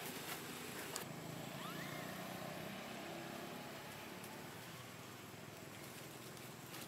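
Faint outdoor ambience with the low hum of a distant motor vehicle, strongest in the first few seconds, and a single sharp click about a second in.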